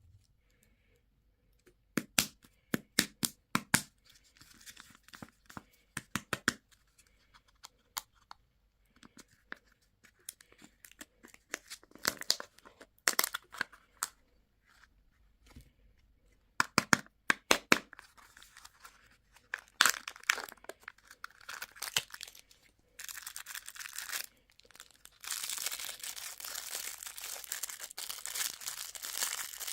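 Candy packaging being opened by hand: sharp crackles and tearing of a plastic wrapper, then a dense, steady crinkling for the last several seconds.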